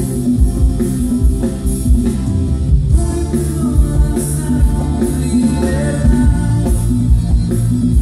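Live worship band playing: drum kit with a steady kick-drum beat, guitars and keyboard, with a voice singing over the band from about three seconds in.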